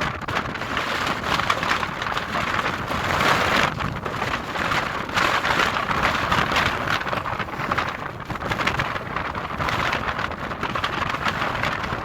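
Strong wind on an exposed mountainside rushing over the microphone in a steady hiss that swells and eases in gusts.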